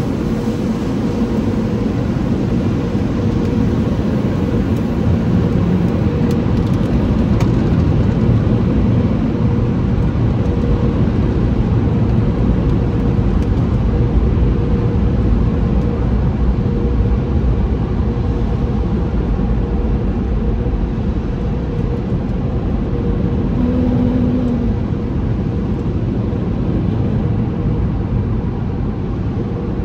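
Automatic tunnel car wash heard from inside the car. At first the washer brushes work with water sheeting over the windshield, then the overhead dryer blowers run, a loud steady rush with a constant hum.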